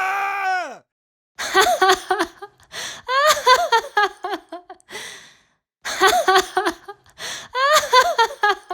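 A high-pitched human voice making short rising-and-falling non-speech sounds for about four seconds, then the same sequence again. In the first second a held voice-like tone slides down in pitch and stops.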